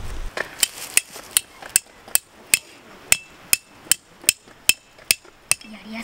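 A tent peg for a tarp guy line being hammered into gravelly ground: a steady run of about fourteen sharp strikes, roughly two and a half a second, each with a brief ringing tone, stopping shortly before the end.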